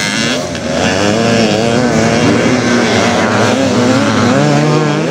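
Several vintage motocross motorcycle engines running on the track, their pitch rising and falling quickly as the throttles are worked.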